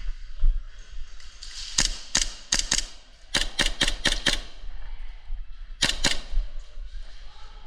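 Airsoft gun firing quick shots in three groups: about four, then five, then two sharp cracks.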